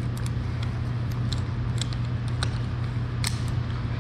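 Scattered light clicks and rattles of carabiners and metal rope hardware being handled, over a steady low hum.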